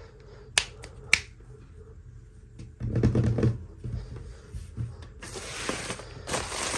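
Toy packaging being handled during an unboxing: two sharp clicks near the start, a louder burst of rustling about three seconds in, then steady crinkling of packaging from about five seconds in.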